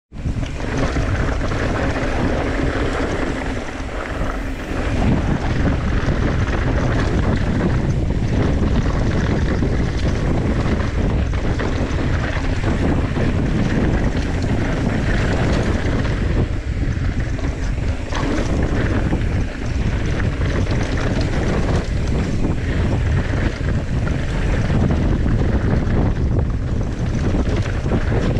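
Steady wind buffeting on the microphone of a camera mounted on a mountain bike riding fast down a dirt trail, mixed with the rumble of the tyres on the dirt.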